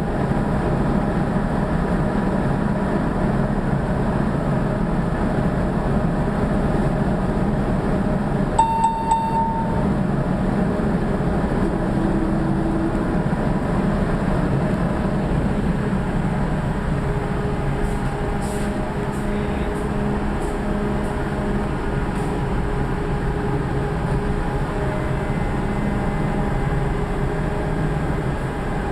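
Cable-making factory machinery running steadily: a continuous mechanical drone with humming tones. A brief high beep sounds about nine seconds in.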